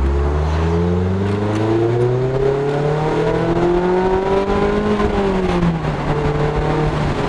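Mazda MX-5 Miata ND2's 2.0-litre four-cylinder, heard through an aftermarket axle-back exhaust, accelerating in one gear with its pitch climbing steadily for about five seconds toward the top end. The pitch then drops away and settles to a steady lower note.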